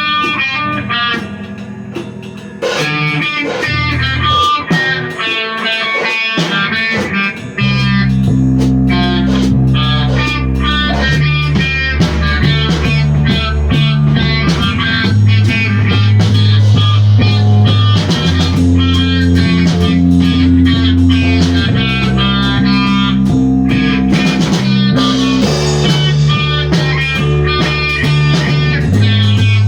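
Instrumental rock from a guitar, bass and drums trio: electric guitar plays a riff over drums, and the bass guitar comes in with long low notes about seven seconds in.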